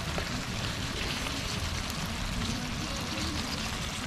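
Lamb stew simmering and bubbling in a frying pan over a lit camping gas cartridge stove: a steady hiss with soft crackle and a low rumble underneath.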